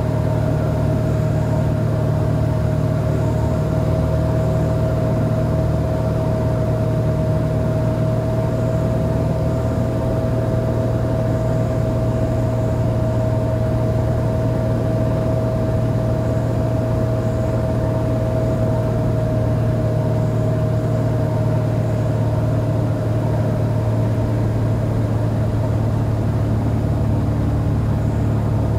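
Cessna 182R Skylane's six-cylinder Continental engine and propeller droning steadily, heard inside the cockpit, with a steady higher whine over the low drone.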